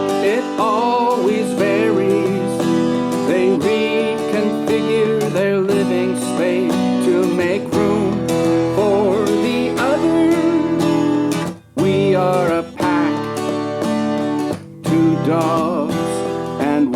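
Strummed acoustic guitar playing the chords of a folk-style song, with a wavering melody line over them. The sound briefly drops out twice in the second half.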